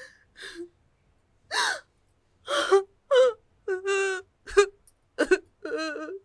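A woman crying in a string of short, high-pitched sobbing wails with gasping breaths between them.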